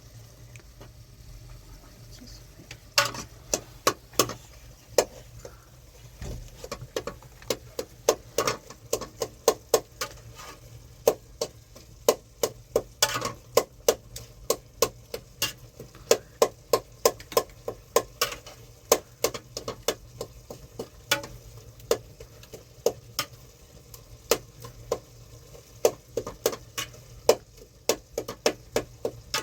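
An irregular series of sharp clicks and knocks, about one or two a second, starting about three seconds in, like small hard objects being struck or handled.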